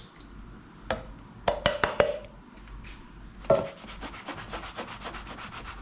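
Kitchen utensils on a wooden board as tomatoes are added to the dish: a few sharp knocks, then a run of quick light taps and rubbing.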